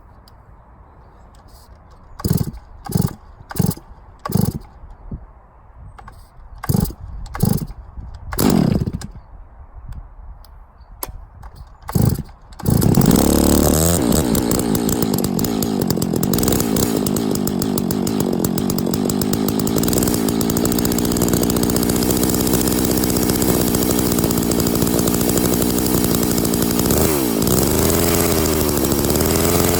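Stihl MS660 two-stroke chainsaw being started: a string of short bursts as it fires and dies, then about 13 seconds in it catches and runs steadily. Near the end its engine speed dips briefly and picks up again.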